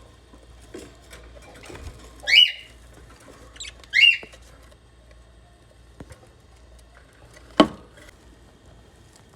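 Lovebird chicks giving two loud, short squawking calls about two seconds apart, followed later by a single sharp knock.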